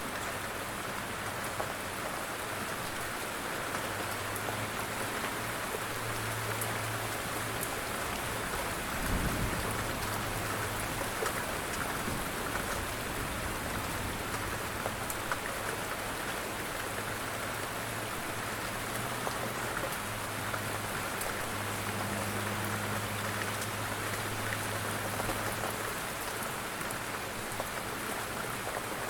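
Light rain falling steadily, with the patter of individual drops. A faint low hum comes and goes behind it, and there is a brief low rumble about nine seconds in.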